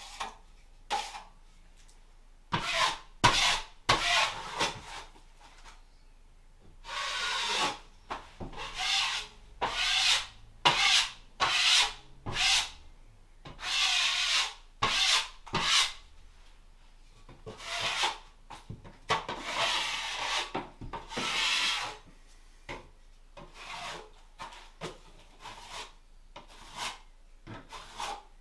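Hand sanding a dried coat of filler on plasterboard walls: irregular rasping strokes of abrasive on the surface, some short and some over a second long. Toward the end they become shorter and fainter.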